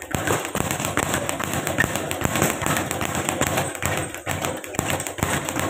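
Speed bag being punched continuously: a rapid, unbroken rattle of sharp taps as the bag is hit and rebounds off its round platform.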